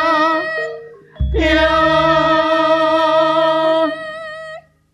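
Singing with musical accompaniment: a voice holds a long note with vibrato, breaks off, then takes up another long held note of nearly three seconds that trails away near the end, the closing notes of a Javanese song.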